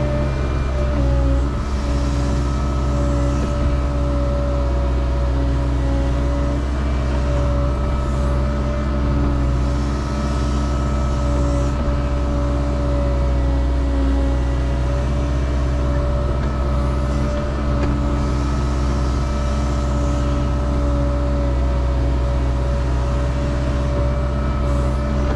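Caterpillar 306 mini excavator's diesel engine running steadily at working speed while the bucket digs a trench in clay, heard from the operator's seat. A steady whine sits over the low engine rumble.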